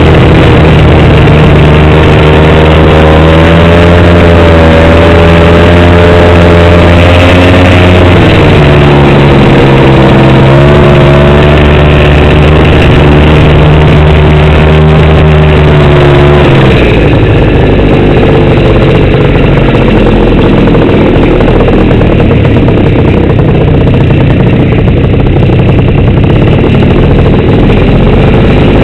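Snowmobile engine running loud under way, its pitch wavering up and down with the throttle; about two-thirds of the way through the note drops lower and turns rougher.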